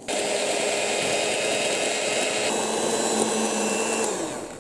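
Electric hand mixer whipping egg whites and sugar into meringue in a stainless steel bowl. The motor starts at once, runs steadily with a shift in its note about halfway, then winds down just before the end.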